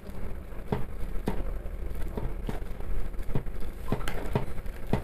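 A metal fork mashing overripe bananas in a plastic bowl, with irregular taps and clicks of the fork against the bowl about twice a second.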